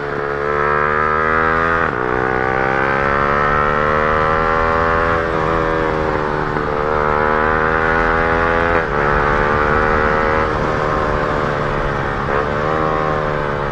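Yamaha R15 M's single-cylinder engine running hard through an Akrapovic full-system exhaust, the pitch climbing steadily under throttle with several brief dips in revs along the way.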